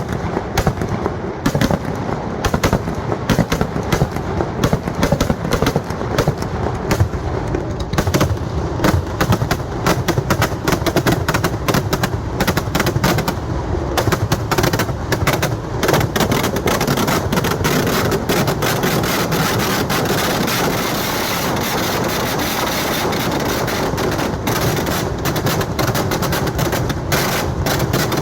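Festival fireworks barrage (vedikettu): a rapid string of firecracker bangs and crackles that grows denser and merges into a near-continuous din from about halfway through.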